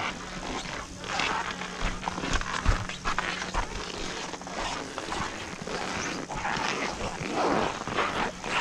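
Footsteps crunching through fresh snow, with clothing rustling, at a slow walking pace. A faint steady low hum runs under the first half.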